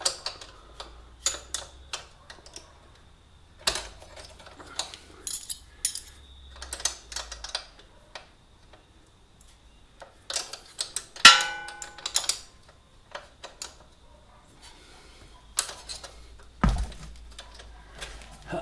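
Spanners clicking and clinking on metal nuts and bolts as the rear wheel adjusters of a motorcycle are loosened, in irregular knocks and ticks. About eleven seconds in a sharper metal clang rings briefly, and a dull thump comes near the end.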